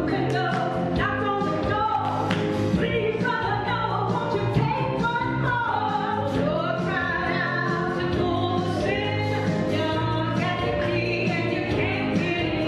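Gospel choir singing with instrumental backing and a steady beat.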